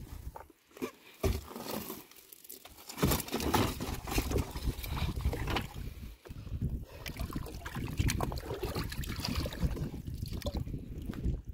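Water trickling and sloshing around a small wooden boat, mixed with irregular knocks and rustles as rohu fish and a mesh net are handled in the hull. A couple of single thumps come first; about three seconds in, the clatter and water noise become continuous.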